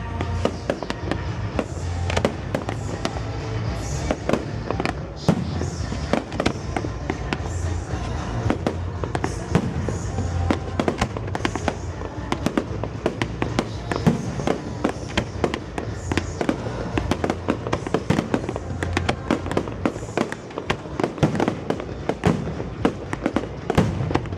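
A dense run of firework bursts, many sharp cracks and bangs a second without let-up, over music played through loudspeakers.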